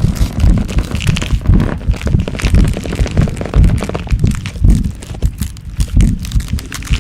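Growth transformation sound effect: deep rumbling thuds pulsing irregularly several times a second, layered with cracking and crackling like stretching, breaking bones.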